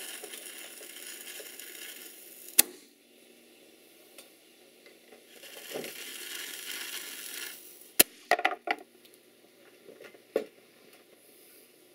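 Miniature cannon's fuse hissing as it burns down, then a sharp crack as the cannon fires. This happens twice; the second shot is followed by a few small clattering knocks.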